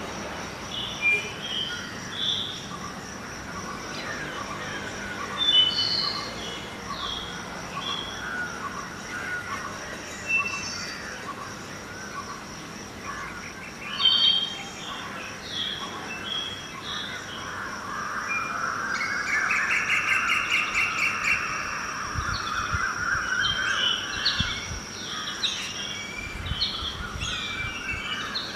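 Many birds chirping and calling in an early-morning chorus, with short sharp chirps throughout and a denser run of calls about two-thirds of the way in. A steady high-pitched tone runs beneath them and fades near the end.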